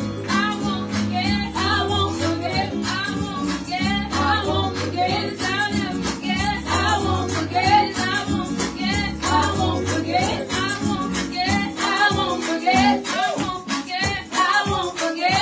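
Women singing a gospel song through microphones over music with a bass line and a steady beat. The bass drops out near the end.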